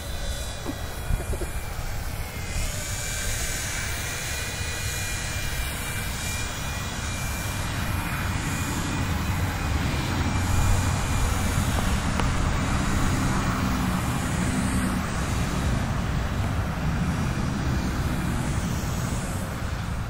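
WLtoys V911 four-channel fixed-pitch micro RC helicopter in flight: its small electric motors and rotors give a steady high-pitched whine that shifts slightly in pitch as the throttle changes, over a low, uneven rumble of wind on the microphone.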